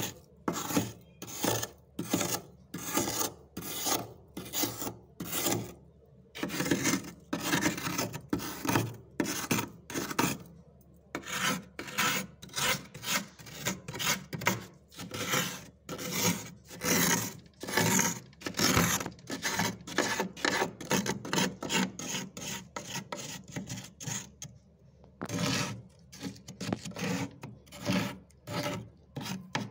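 Fingers scraping and crunching thick frost build-up inside a freezer, in quick repeated rasping strokes of about two a second. The strokes pause briefly twice.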